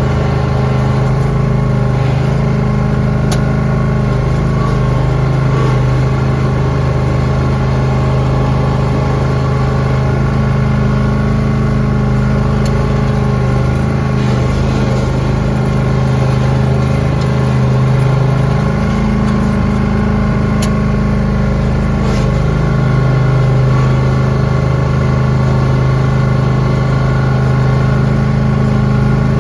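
Lawn tractor engine running steadily under load while plowing snow, its pitch sagging slightly and recovering a few times.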